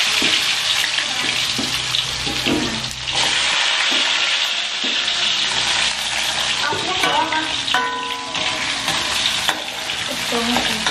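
Sliced jengkol (dogfruit) frying in hot oil in a wok: a steady, loud sizzle, with a spatula stirring the pieces near the end.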